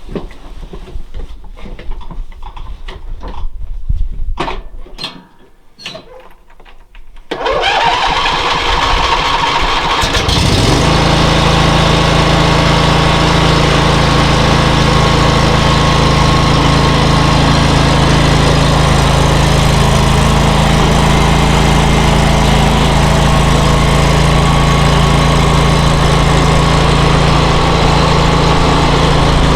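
A few scattered knocks, then the starter of a John Deere 320 lawn tractor cranks for about three seconds. The engine catches about ten seconds in and runs steadily after that.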